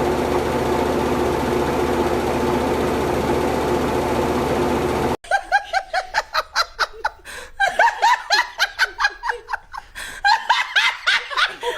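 A machine runs with a steady, even hum for about five seconds and then cuts off abruptly. A person then laughs in quick, repeated bursts to the end.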